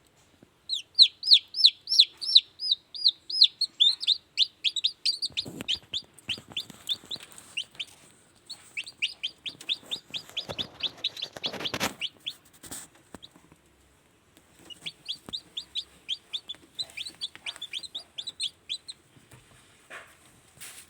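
Hatching kampung chicks peeping: three bouts of rapid, high, falling peeps, several a second, with rustling and a louder knock about twelve seconds in.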